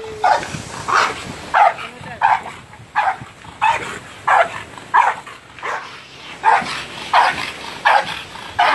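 Pit-bull-type dog barking over and over in short, regular barks, about three every two seconds.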